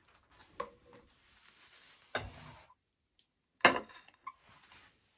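Serving spoon and crockery clattering while sauce is spooned onto a plate of spaghetti: a few light knocks and scrapes, with the sharpest knock about three and a half seconds in.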